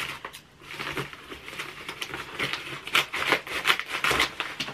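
Yellow paper padded mailer crinkling and rustling in irregular crackles as it is cut open with scissors and handled.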